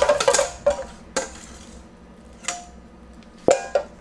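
Kitchen utensil clattering and scraping against dishware as batter is scooped out: a quick run of clicks at the start, then a few separate knocks, the loudest about three and a half seconds in.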